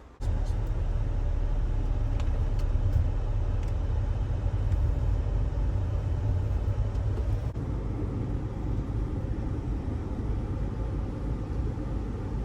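Steady low rumble of a car on the move: road and engine noise heard from inside. It cuts in suddenly and has a brief break about seven and a half seconds in.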